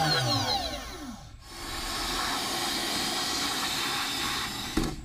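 Othermill desktop CNC spindle spinning down after finishing its cut in aluminium, its whine falling in pitch and fading over about a second. Then a vacuum hose sucks up the aluminium chips with a steady hiss, with a short thump near the end.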